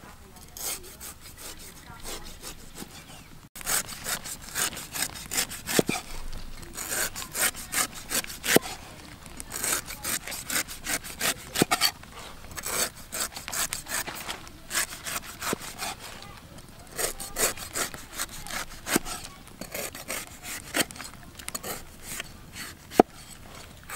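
Steel cleaver slicing the knobbly green rind off an unripe jackfruit: quick repeated scraping, rasping strokes through the firm skin and flesh. The cuts get louder and busier a few seconds in.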